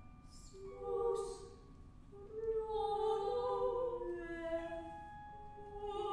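Two female voices singing long, wordless held notes that slide slowly and overlap at close pitches, swelling about a second in and again from about two and a half seconds on.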